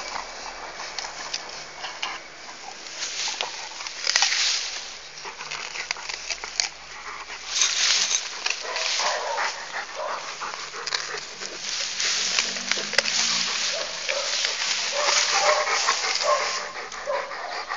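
A dog chewing and gnawing on a stalk of sugarcane: irregular crunching and cracking as it bites into the cane.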